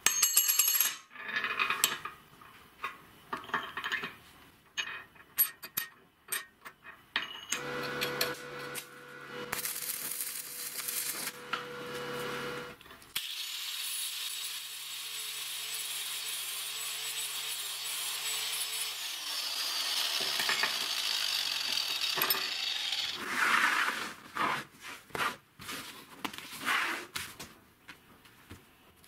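Handheld angle grinder grinding a weld bead on a steel flange: a steady high hiss over the motor's tone for several seconds, then the motor winds down. Before it, another machine runs for a few seconds, and steel parts clink and clank as they are handled.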